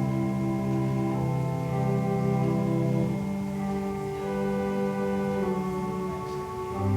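Church organ playing slow, sustained chords, with the chord changing every second or so, as offertory music during the collection.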